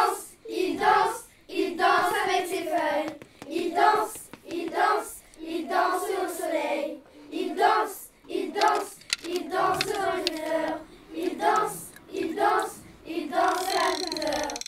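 Children singing together in short phrases, about one a second, with brief gaps between them.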